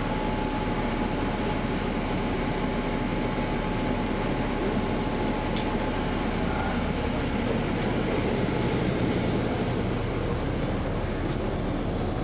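2009 NABI 416.15 transit bus with a Caterpillar C13 ACERT diesel engine and ZF Ecomat six-speed transmission running with a steady drone.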